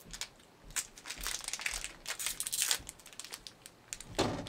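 Snack wrapper crinkling in irregular bursts as it is handled and opened, densest about two seconds in, with another loud rustle near the end.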